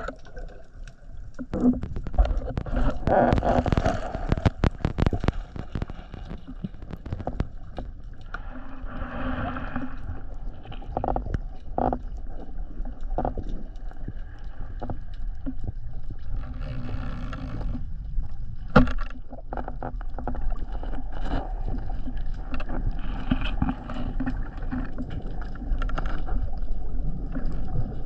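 Underwater sound picked up through an action camera's waterproof housing during a breath-hold dive: a steady, muffled low rumble of water with scattered clicks and knocks, densest a few seconds in, and patches of hiss.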